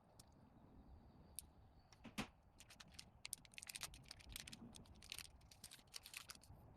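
Faint crackling and quick, light clicks of plastic packaging and protective film being handled as consumable pads are unwrapped, starting about two seconds in.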